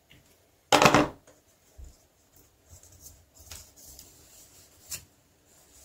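Hands spreading grease onto 3D-printed plastic mould pieces: faint rubbing and handling sounds with a few light clicks, and one brief louder scuff about a second in.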